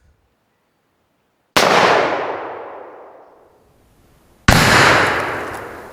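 Two loud gunshots from a Traditions Trapper .50 caliber black powder pistol, about three seconds apart, each followed by a long rolling echo that fades out over about two seconds.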